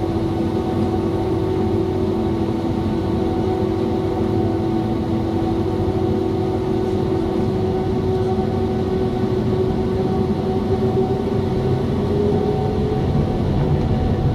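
Boeing 767-300 jet engines heard inside the cabin over the wing, running steadily with a tone that slowly climbs in pitch as the engines spool up, getting a little louder near the end as the takeoff roll begins.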